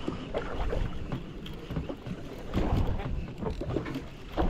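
Water slapping and sloshing irregularly against the hull of a small fishing boat, with low wind rumble on the microphone.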